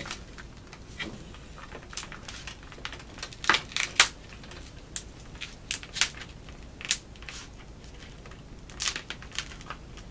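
Plastic Holz port ring being pressed by hand into the hole of a bass drum head, giving irregular sharp clicks and crackles as the ring and the drumhead film flex under the pressure.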